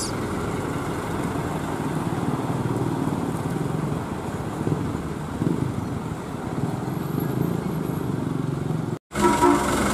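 Medium bus's engine running steadily as the bus pulls away across the terminal yard. It cuts off abruptly about nine seconds in.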